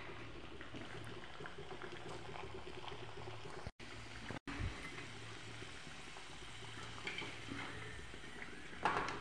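Samosas deep-frying in hot oil in a kadhai: a steady sizzle with fine crackling. The sound drops out twice for a moment a little before halfway, and a short louder rattle comes near the end.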